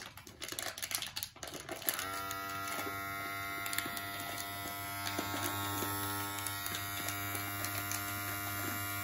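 Furrykid cordless dog clippers switched on about two seconds in, the motor and blade running with a steady, even hum until they are switched off near the end. A few clicks come before the motor starts.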